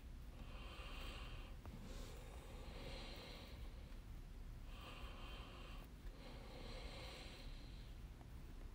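A person breathing slowly and faintly close to a microphone: soft airy breaths, about one every two seconds, alternating in and out.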